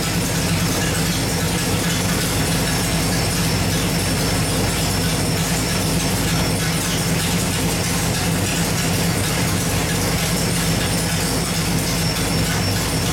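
Small-block Chevy 383 stroker V8 idling steadily, with no revving.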